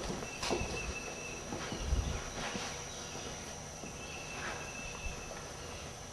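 Faint, scattered footsteps on a concrete barn floor. A thin, high trill of about a second is heard twice, near the start and again about two-thirds of the way through, like an insect or bird.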